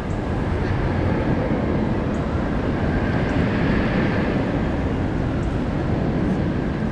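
Roller coaster train rumbling along its steel track, swelling to a peak about halfway through and then fading, over a steady low rumble.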